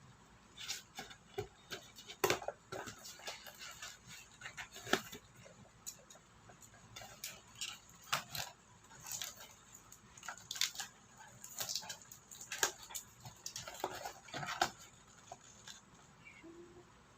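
Packaging being handled and opened by hand: an irregular run of rustles, scrapes and taps.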